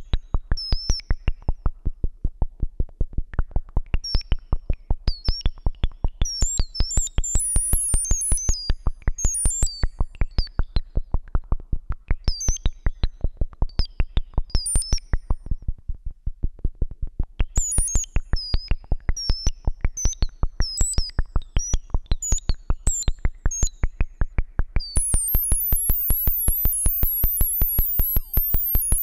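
Breadboarded Moog-style transistor ladder filter pinging on a steady train of clicks, about five a second. Each click sets the resonant filter ringing with a short high tone whose pitch changes from click to click. Near the end the high ringing grows louder and thicker.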